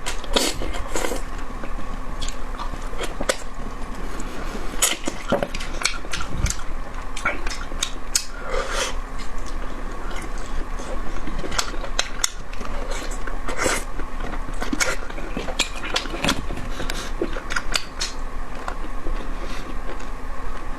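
A person eating close to the microphone: irregular clicks of utensils against a dish mixed with biting and chewing, over a steady faint hum.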